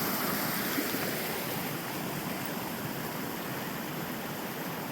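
Steady rush of a small mountain waterfall and its stream, a little softer after the first second or two.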